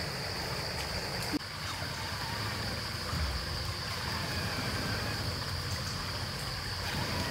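Water trickling and gurgling, with a steady high-pitched insect drone over it.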